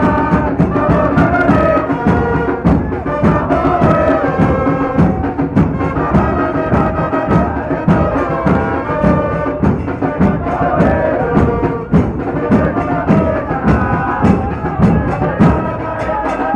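A terrace of football supporters singing a chant to a brass band of trumpets and trombones, with drums keeping a steady, even beat.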